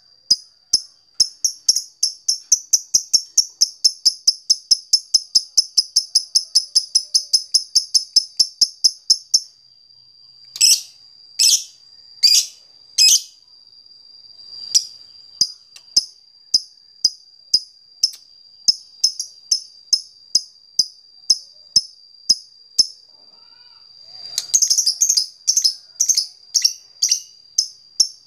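Fighter lovebird's rapid ticking chirps ('ngetik'), about four a second, then a few louder harsh calls, then slower single chirps about one a second that quicken again near the end; a faint steady high tone runs underneath. It is a lovebird's call to a rival.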